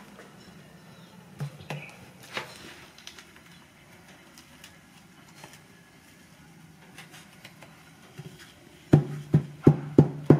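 Soft scraping and a few light knocks as chopped meat and herbs are pushed into a bamboo tube with a plastic spoon. Near the end, music with a sharp plucked beat about three times a second comes in over a steady bass note and is the loudest sound.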